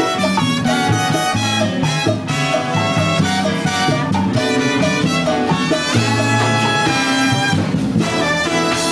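Cuban salsa band playing, with a brass section carrying the melody over a moving bass line and percussion.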